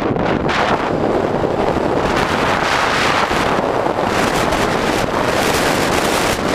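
Loud, steady wind rushing over the microphone of a camera on an electric bike moving fast along the road.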